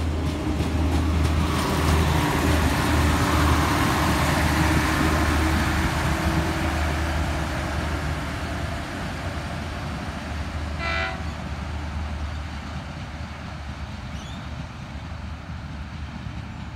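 Two-car Adelaide 3100-class diesel railcar set pulling away and passing: a steady low engine hum with wheel and rail noise, loudest a few seconds in and then fading as it recedes. A short train horn toot about eleven seconds in.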